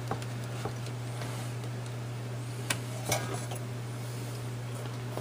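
Light clicks and a clink of metal parts being handled on the chassis of a Heathkit IM-13 vacuum-tube voltmeter as its 6AL5 tube is worked loose, two sharper clicks about three seconds in. A steady low hum runs underneath.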